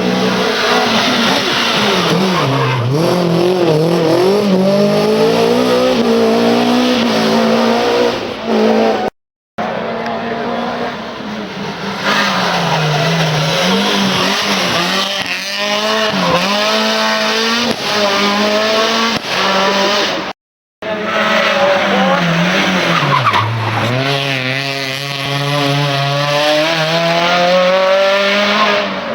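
Rally car engines running hard on a special stage, revving up and falling back again and again through gear changes and corners. The sound cuts out abruptly twice as one clip gives way to the next.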